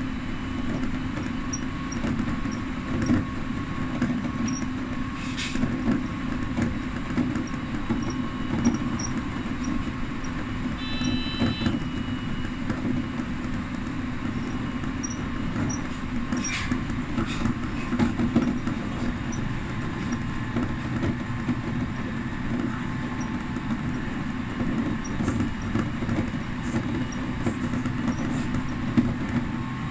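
Electric commuter train running along the track, heard from inside the front car: a steady rumble and hum of wheels on rail with occasional short clicks, and a brief high tone about eleven seconds in.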